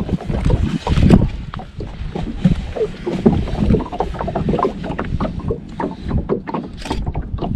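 Water lapping and slapping against the side of a small boat, with many irregular small knocks and wind rumbling on the microphone.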